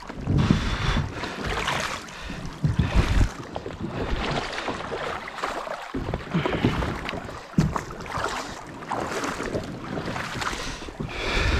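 Kayak being dragged by hand through shallow water and mud: splashing footsteps and the hull scraping and sloshing come in uneven bursts. Wind buffets the microphone now and then.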